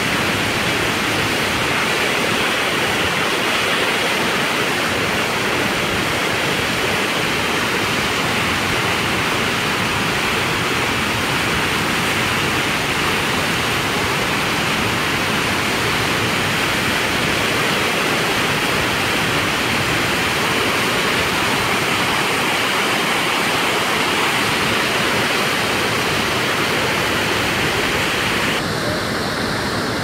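Waterfall plunging into a rocky gorge pool: a steady, loud rush of falling water, its tone shifting slightly near the end.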